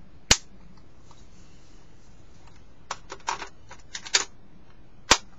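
Sharp clicks and clacks of a Umarex Steel Storm CO2 BB pistol being handled: a loud click about a third of a second in, a run of smaller clicks around three to four seconds in, and another loud click near the end.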